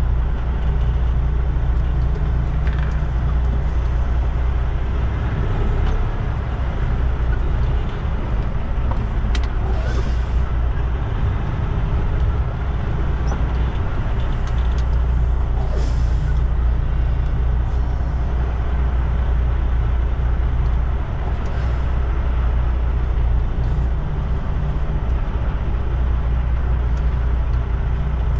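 Semi truck's diesel engine running steadily at low speed, heard from inside the cab as the truck rolls slowly. It makes a constant low drone, with a couple of brief hisses about ten and sixteen seconds in.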